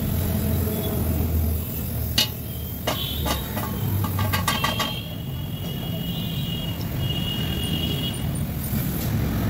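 Gas brazing torch flame running with a steady low rush as a diamond segment is brazed onto the rim of a steel core drill bit. Several sharp metallic clicks and taps come about two to five seconds in, as the segment is set against the tube with pliers.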